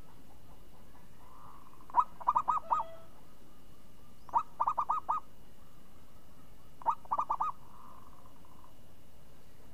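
Zebra dove (perkutut) cooing. It sings three phrases, each a single note followed by a quick run of about four short rolling coos.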